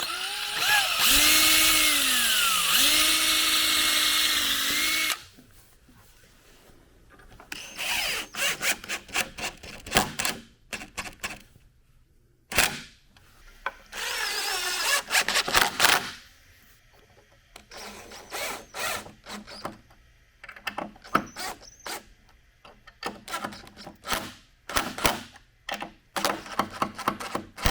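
Power drill driving sheetrock screws into a wooden vanity. It whines steadily for about five seconds, its pitch dipping and recovering under load, then runs in many short trigger bursts with one longer run about halfway through.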